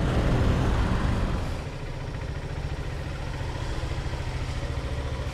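Honda XR150L's single-cylinder engine running at low speed, a steady rapid putter. Busier traffic noise lies under it for the first couple of seconds.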